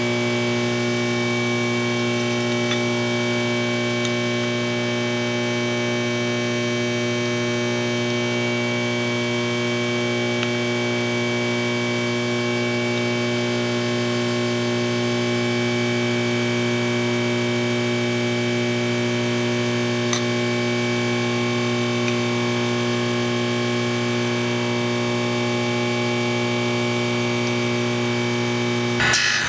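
Surface grinder running steadily, its spindle motor giving a constant hum with a high whine over a hiss. Just before the end a harsher rasping noise sets in.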